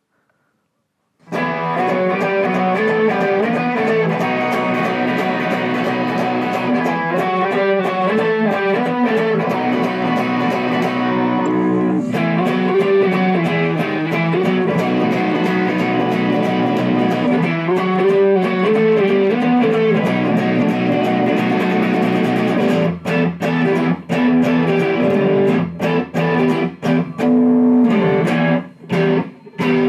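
Electric guitar, a Crimson prototype fitted with a Mastery tremolo bridge, starting up after about a second of silence: sustained chords whose pitch wavers twice, then choppy stop-start playing through the last seven seconds.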